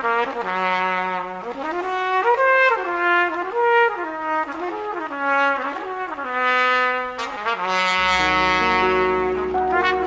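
Trumpet playing a lively melody of short, changing notes, some sliding up or down between pitches. Low held notes come in underneath about eight seconds in.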